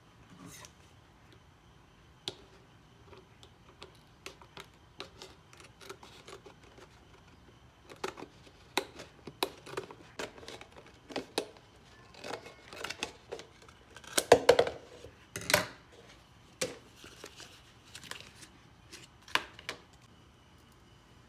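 Scissors cutting through the rim of a plastic yogurt tub to remove its base: a run of irregular snips and crackles of stiff plastic, sparse at first, busiest and loudest about two-thirds of the way through.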